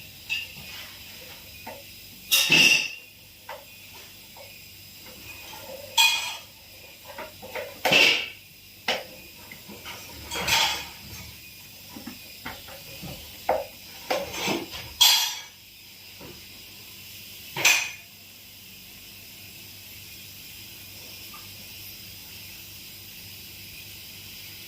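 Gas hissing out of refrigerator pipework in about six short, loud blasts a few seconds apart, with small metallic tool clinks between them, during repair of a leaking refrigerant line.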